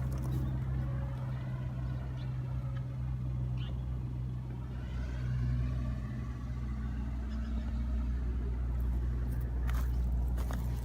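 Steady expressway traffic rumble, with a vehicle passing by in the middle and a few sharp clicks near the end.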